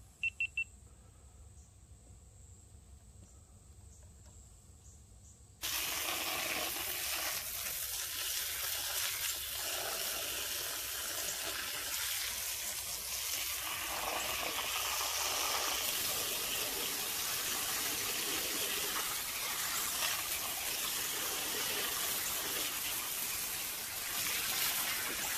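A few quick clicks, then several seconds of near quiet, after which a steady rushing hiss like running or spraying water sets in abruptly about five and a half seconds in.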